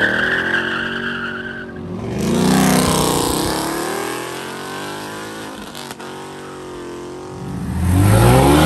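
Cars accelerating away one after another: tyres squeal steadily for about the first two seconds as a Ford Mustang pulls off. Then a second Mustang's engine revs up and fades into the distance, and near the end a Porsche 911's engine rises loudly as it passes close.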